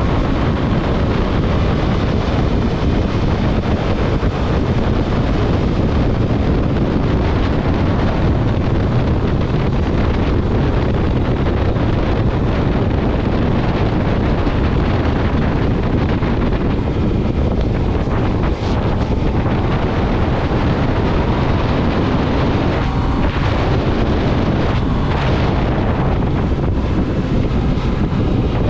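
Strong wind buffeting the microphone over a motorcycle engine running at road speed, loud and steady.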